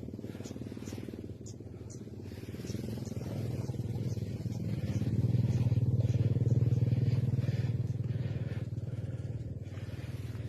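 A small engine running steadily with an even low throb, growing louder for a few seconds in the middle, then easing back.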